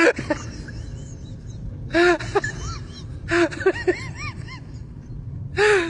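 Short bursts of high, arching vocal cries and squeals, a few times, over a steady low rumble.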